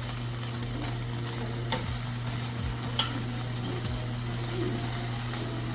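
Chicken frying in a pan: a steady sizzle, with a low steady hum underneath and a couple of faint clicks.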